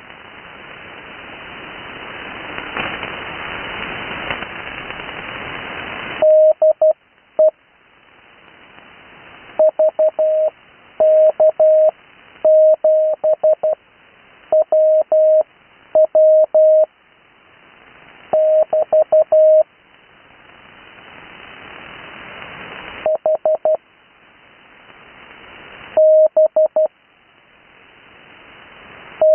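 Morse code (CW) on the 80 m amateur band, heard through an HF receiver: a single steady tone keyed into dots and dashes, sending call signs with long Farnsworth gaps between characters. Band hiss fills the first several seconds. Between groups the hiss swells back up as the receiver's gain recovers.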